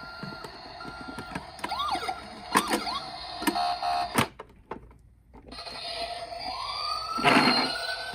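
Electronic sirens of toy emergency vehicles: short repeated beeps, then warbling siren sweeps mixed with clicks and knocks. After a brief gap about five seconds in, a siren winds up in pitch, with a loud knock a little after seven seconds.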